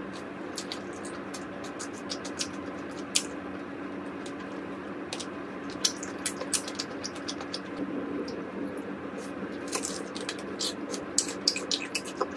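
Close-up eating sounds: Kyochon Honey Combo fried chicken being bitten and chewed, with scattered crisp clicks, crunches and wet mouth sounds that come thickest near the end. A steady low hum runs underneath.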